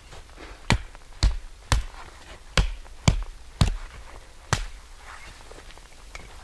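Chopping wood with an axe or hatchet: seven sharp strikes about two a second, stopping about four and a half seconds in.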